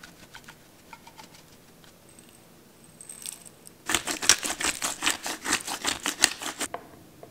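Faint taps of a spice tin being shaken over a plastic bowl. About four seconds in comes a fast run of crisp clicks, about nine a second for nearly three seconds, from a hand-held spice grinder grinding seasoning onto the meat.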